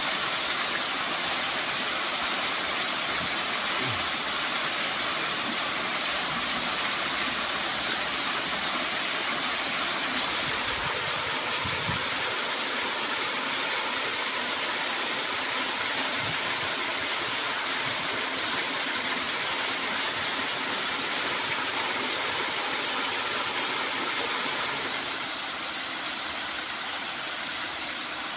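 Small waterfall splashing into a shallow rock pool: a steady rush of falling water that drops a little in level near the end.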